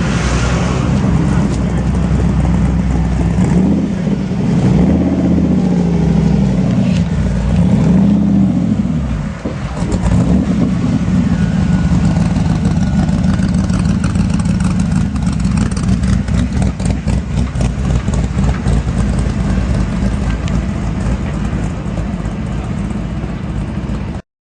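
Rapier Superlite sports car's engine running loud, blipped and revved a few times in the first ten seconds, then settling to a steady, lumpy idle that stops abruptly near the end.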